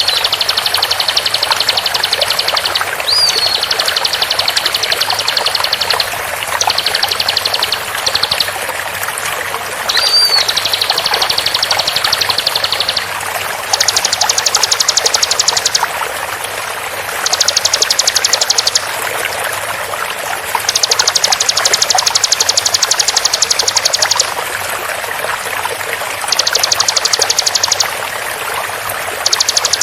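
Bar-winged prinia (ciblek) song in rapid-fire 'tembakan' trills over steady running water. The trills are dense, rapid buzzing runs lasting one to four seconds, repeated with short gaps, and a few short upswept whistles come near the start and about ten seconds in.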